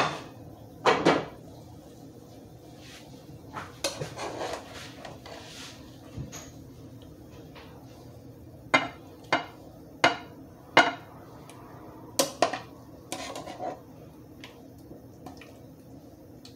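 Metal kitchen tongs clinking and scraping against a frying pan while scooping out sautéed mushrooms and onions. The sound is a series of short, sharp clinks, coming quickly one after another about nine to thirteen seconds in.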